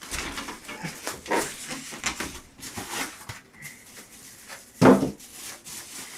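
Packaging being handled as a PC case is taken out of its cardboard box: a string of short rustles and scrapes, with one louder sharp sound about five seconds in.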